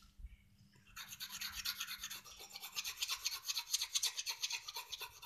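Orange coloured pencil shading quickly back and forth on a wooden bauble. The scratchy rasp of many short strokes a second starts about a second in.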